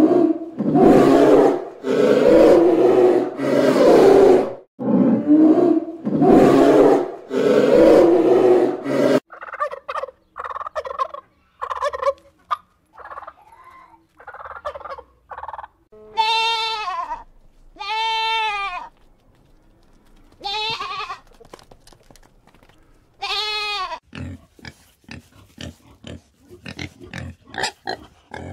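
Polar bear giving a run of loud, rough growls for about nine seconds. Then a wild turkey makes short calls and gobbles four times. Near the end comes a pig's quick grunting.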